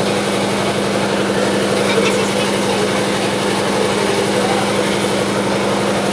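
A small engine running steadily, with the indistinct chatter of a crowd.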